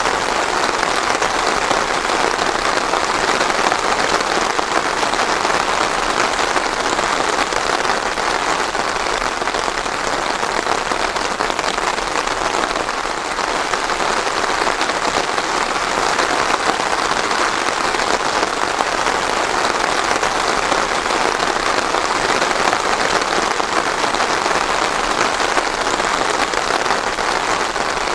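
Steady rain falling on a surface, a dense even patter with no thunder.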